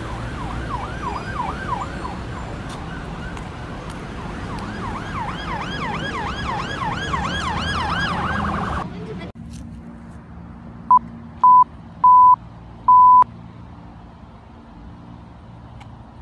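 Emergency vehicle siren in a fast yelp, pitch sweeping up and down several times a second, in two stretches over vehicle noise, cutting off suddenly about nine seconds in. Four loud electronic beeps at one pitch follow a couple of seconds later, the last two longer than the first two.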